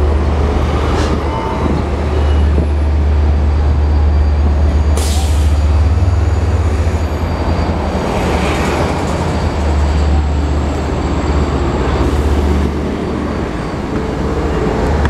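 Long Island Rail Road train of Kawasaki C3 bilevel coaches passing overhead with a steady low rumble, pushed by an EMD DE30AC diesel locomotive at the rear that goes by in the second half. A short sharp hiss sounds about five seconds in.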